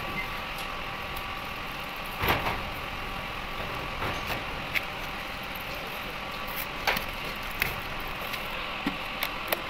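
Steady hum of running machinery, with a few sharp clicks and knocks from a metal compressor oil filter housing being handled. The loudest knock comes about two seconds in.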